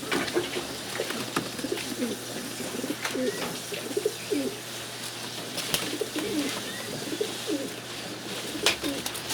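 Many rock pigeons cooing at once, low warbling calls overlapping one another, with scattered sharp clicks and knocks among them.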